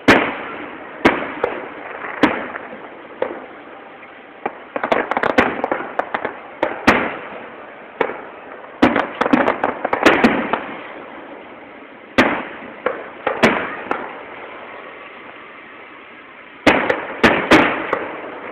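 Aerial fireworks shells bursting: sharp bangs, some single and some in quick clusters of cracks, each trailing off in echo.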